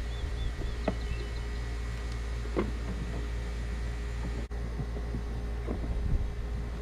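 Water from a garden hose running steadily into a bass boat's live well, with a low rumble and hiss under it. A few light knocks come as a hand works inside the well.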